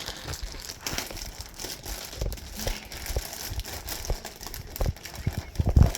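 Plastic wrapping crinkling and rustling as it is pulled open and off a laptop, with a few dull handling bumps, the loudest near the end.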